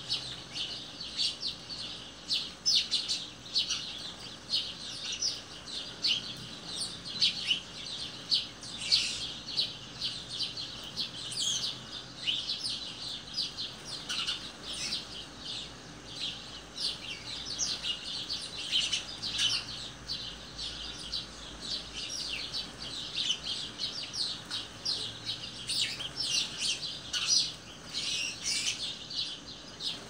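A flock of small songbirds chirping and twittering in a dense, continuous chatter of short, high calls.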